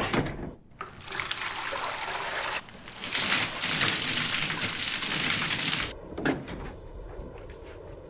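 A basin of water poured over a person's head and splashing down, loudest from about three to six seconds in.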